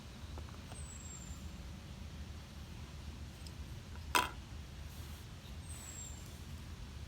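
A single sharp click about four seconds in, a plastic bottle cap set down on a game grid drawn on a peanut can, over a low steady outdoor rumble. Two faint, brief, high falling whistles come near the start and near the end.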